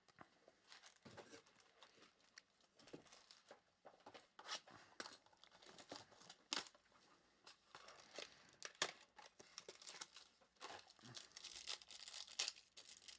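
Faint crinkling and tearing of plastic trading-card wrapping, with many short scattered crackles, as a card box and its packs are unwrapped.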